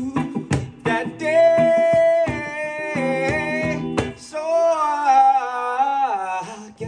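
A song sung to guitar: sharp strummed guitar chords, then a voice holding long notes, the last one wavering and sliding down in pitch.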